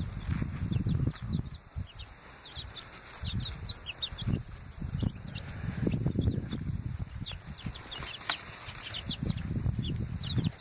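Baby chicks peeping: many short, high chirps that slide downward, coming thick and fast, over low rustling and bumping as they are handled out of their cardboard box.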